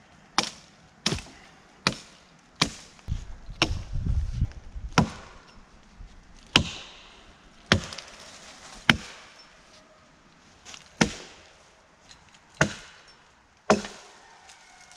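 Hatchet chopping into a fallen tree limb: about a dozen sharp blows at an uneven pace of roughly one a second, with a brief low rumble a few seconds in.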